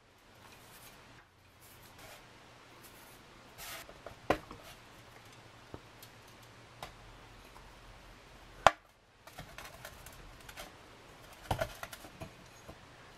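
Hands breaking and crumbling a dense, dry, bloomed WWII British emergency ration chocolate bar over a stainless steel tray and into a glass: soft crumbling with a few sharp clicks, the loudest about two-thirds of the way through.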